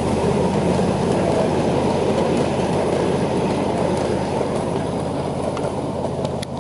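Wheels of large-scale Pennsylvania Railroad-liveried ride-on passenger cars rolling on steel rails: a steady rumble that eases as the last car passes, with a few faint clicks.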